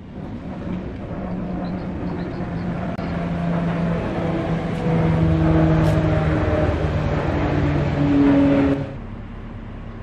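Toyota Rush SUV driving up and coming to a stop, its engine and tyres growing louder as it nears. The sound drops away sharply near the end.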